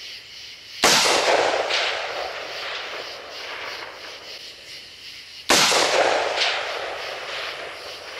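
Two rifle shots from an AR-15 carbine with a 16-inch barrel firing 5.56mm XM856 tracer rounds, one about a second in and the next about four and a half seconds later. Each sharp crack is followed by a long rolling echo that dies away over a couple of seconds.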